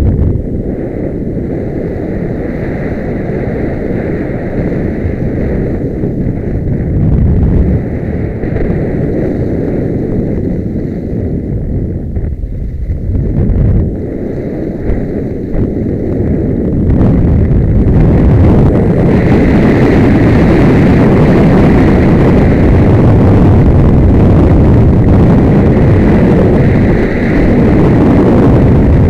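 Loud wind rushing over the microphone of a camera carried by a skier going downhill at high speed, getting louder about two-thirds of the way through as the speed builds.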